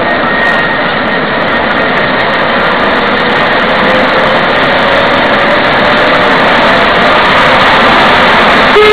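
Steady running noise of a 7¼ inch gauge battery-electric miniature locomotive riding along its track, wheels on the rails, with a faint whine slowly rising in pitch.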